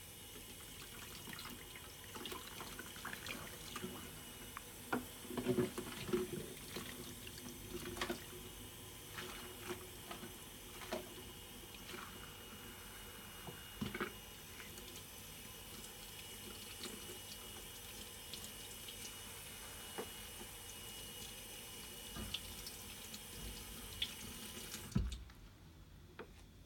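Tap water running into a stainless steel sink while small plastic nebuliser parts are rinsed under it, with scattered light knocks and clicks as the parts are handled. Near the end the water stops with a thump as the tap is shut off.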